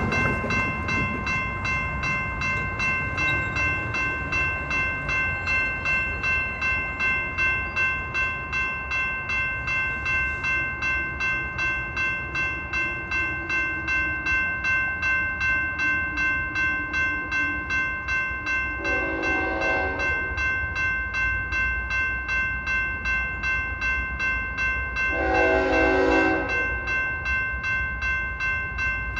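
Railroad crossing warning bell ringing steadily in an even rhythm of about two strikes a second. An approaching train's horn sounds twice in the distance, about two-thirds of the way in and again near the end, the second blast longer and louder.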